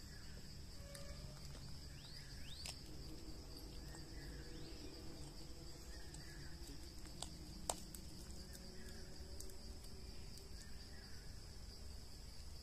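Steady high-pitched drone of insects, with a few faint rising chirps a couple of seconds in and a single sharp click a little past the middle.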